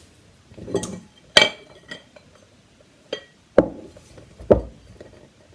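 A pie dish clinking and knocking as it is handled and tapped to turn out a heavy pie: a bright ringing clink about a second and a half in, a few lighter knocks, and two heavier thuds near the end.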